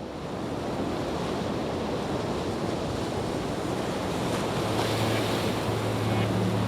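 Steady rain-sound ambience, a dense even hiss that swells up over the first second and then holds. About four seconds in, a low sustained tone joins underneath it.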